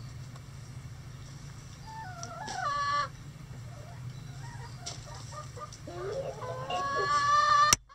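Rooster crowing: a short wavering call about two to three seconds in, then a longer, louder crow that rises and is cut off abruptly near the end, over a steady low hum.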